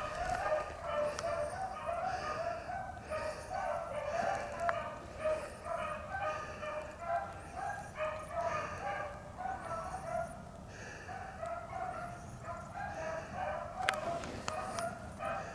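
Beagles baying on a rabbit's track: a steady chorus of short, overlapping howls, two or three a second, that does not let up.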